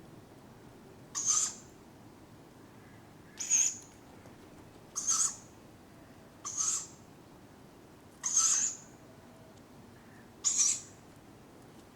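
Tawny owlets giving their high, hissing begging calls for food: six short calls, one every one and a half to two seconds.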